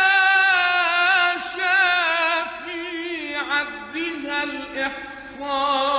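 A man's solo voice chanting an Arabic religious hymn, drawing out one long ornamented melismatic note with a wavering vibrato. There is a short break about halfway, and a new phrase begins near the end.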